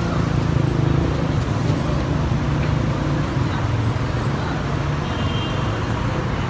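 Steady low rumble of heavy road traffic, with engines running close by and a dense even noise over it. A short high tone sounds briefly about five seconds in.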